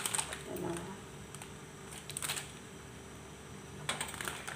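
Plastic wrapper of an Indomie Mi Goreng instant noodle packet crinkling as it is torn open and handled. The crinkles come in a few short spells: at the start, about two seconds in, and again near the end.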